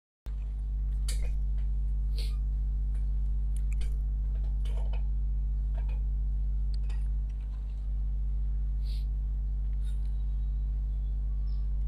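Steady low electrical hum that starts abruptly just after the beginning, with a few faint short clicks and chirps scattered over it.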